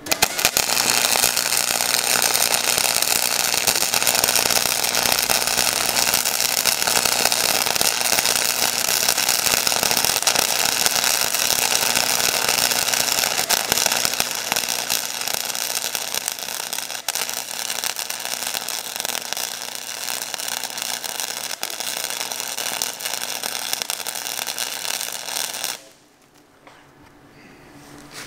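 Cheap Harbor Freight flux-core wire welder running a continuous bead on a cast-iron Chrysler 361 big-block engine block, welding shut a freeze crack. The arc crackles steadily over a low hum for about 25 seconds, then cuts off suddenly near the end.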